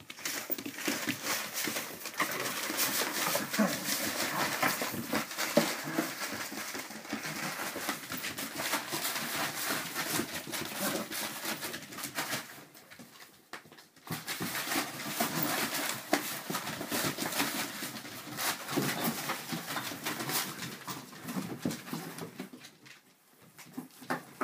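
Dachshund puppies rummaging in a cardboard box and crumpled packing paper: busy paper rustling and crinkling with scratching on cardboard. It breaks off for about a second and a half midway, then starts again and dies down near the end.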